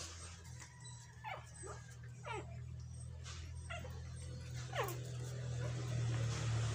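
Shih Tzu puppies whimpering while they jostle to nurse: about six short, high squeals that fall steeply in pitch, spread over a few seconds. Underneath is a steady low hum that grows a little louder near the end.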